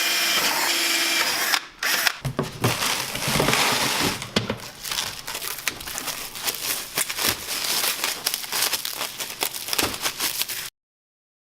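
Power drill with a 7/32 inch bit boring out pre-marked holes: a steady whirring run, a short pause, a second run, then a long stretch of rapid rattling clicks as the bit works through. The sound cuts off abruptly near the end.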